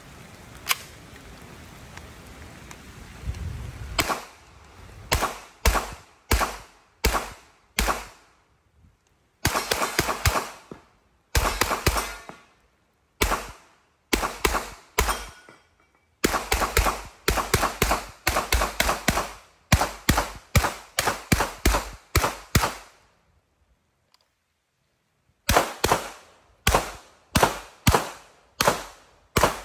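Gunshots from a CZ Scorpion carbine fired in quick strings of rapid shots with short pauses between them, each crack ringing off the range. After a pause of about two seconds near the end, the shots resume from a handgun.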